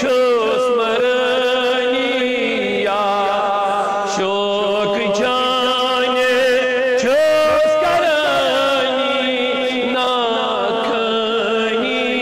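Devotional naat chanting: one voice sings long, wavering melodic phrases over a low held drone that drops in pitch about three seconds in and rises again about eight seconds in.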